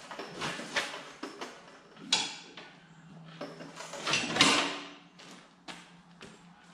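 Irregular clunks, knocks and scraping of metal parts and hand tools being handled while an ATV engine and drive train are unbolted from the frame. There are two louder clunks, about two seconds in and again around four seconds.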